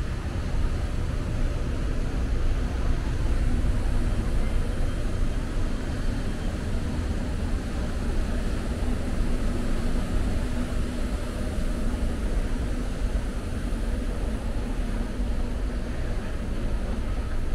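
Steady low rumbling noise with a faint hum, unchanging throughout, with no distinct knocks or other events.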